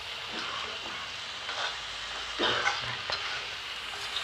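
Potato chunks frying in masala in an iron kadhai, sizzling steadily while a metal spatula stirs them, scraping and knocking against the pan. The stirring is loudest a little past halfway.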